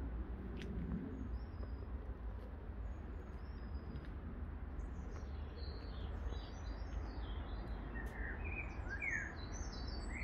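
Small birds chirping outdoors, a scatter of short high calls that grows busier about halfway through, with a few louder calls near the end, over a steady low background rumble.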